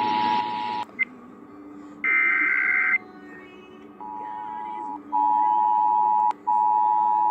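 Emergency Alert System tones: the two-tone attention signal ends under a second in, a harsh burst of SAME digital header tones follows for about a second, and the two-tone attention signal starts again about four seconds in, with brief dropouts.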